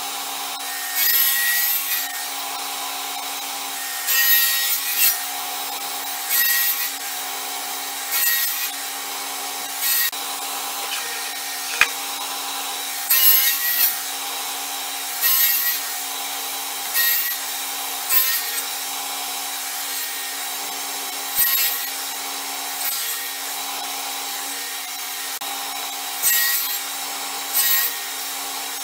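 Table saw running steadily, its blade set low, taking repeated short passes through a plywood board on a crosscut sled to clear a 10 mm deep recess. A steady hum is broken every second or two by a brief burst of cutting noise.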